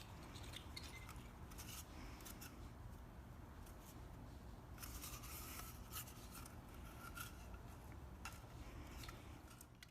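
Faint rustling and light scattered ticks of string being handled and tied onto a small feeder base.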